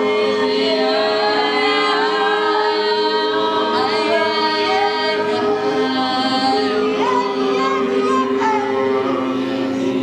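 Several voices singing together over long held drone notes, with melodic lines sliding and wavering above the drone.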